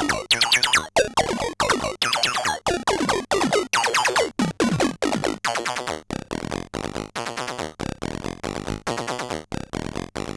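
Soulsby miniAtmegatron 8-bit Arduino synthesizer playing a rapid run of short, sharply cut-off notes. In the first half each note sweeps steeply down in pitch. From about six seconds in the notes turn steadier and buzzier.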